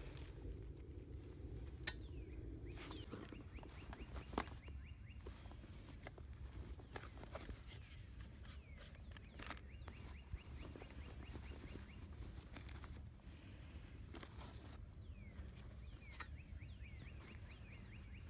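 A songbird singing a phrase of rapid repeated notes, each opening with a falling note, three times about six seconds apart. Close rustling of a canvas sack and gear being handled, with a few sharp clicks, over a steady low rumble.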